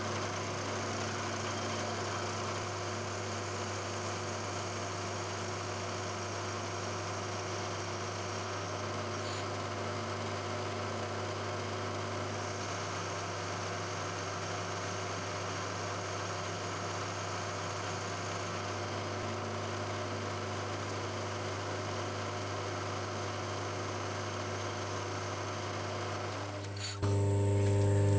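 Milling machine running, its end mill cutting a brass bar held in a vise: a steady motor hum with an even hiss over it. About a second before the end the hum suddenly gets louder.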